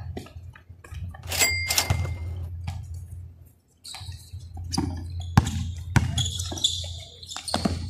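Basketball game play: a ball bouncing and other scattered thuds on the court, with a brief high squeak about two seconds in over a steady low hum.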